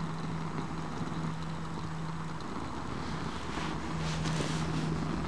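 Steady outdoor background rush with a faint low hum that drops in and out, and a few faint rustles near the end.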